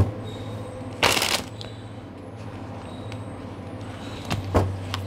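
Oracle cards being shuffled by hand: a short riffling burst about a second in, then two sharp clicks of cards near the end, over a steady low hum.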